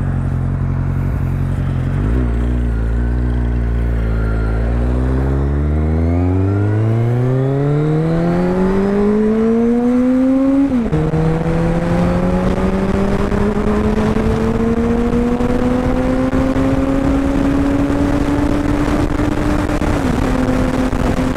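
Kawasaki Z1000 inline-four through an Arrow aftermarket exhaust, pulling away under acceleration. It runs low and steady for about two seconds, then its note climbs steadily until about eleven seconds in, where the pitch drops suddenly at an upshift. After that it rises slowly again, with another brief dip in pitch near the end.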